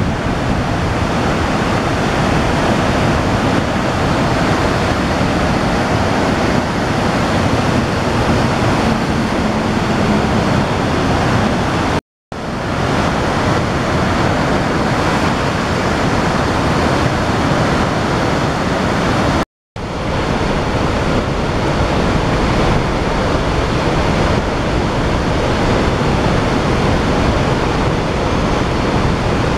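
River in flood pouring over a low dam and down rock falls: a loud, steady rushing of white water, the river swollen by snowmelt and heavy rain. The sound drops out to silence briefly twice, about twelve and nineteen and a half seconds in.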